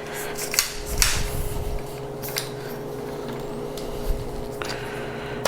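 Handling of a lightweight tripod's legs: a few faint clicks and rubbing noises over a steady background hum, with a sharper click at the end.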